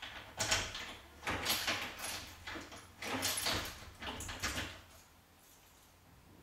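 A door sliding, several short scraping, rushing noises in quick succession.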